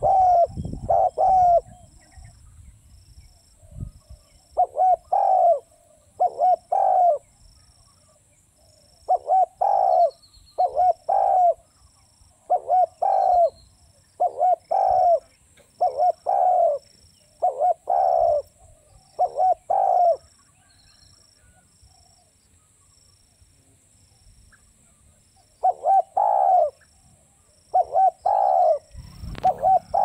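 Spotted dove cooing: repeated phrases of a few low, bending coo notes, with pauses of a second or more between phrases and a longer silence a little past the middle. A faint high chirp from another bird is heard now and then.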